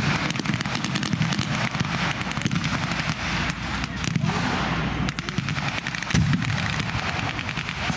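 Rapid, overlapping gunfire from World War II rifles and jeep-mounted machine guns firing blanks: a dense crackle of shots with no real pause.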